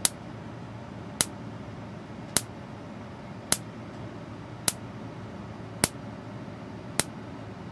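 Spark gap fed by a 12 volt automotive ignition coil, driven by an electric fence charger's pulses, snapping with a spark about 3/8 to half an inch long. There are seven sharp snaps, evenly spaced a little over a second apart, over a faint steady hiss.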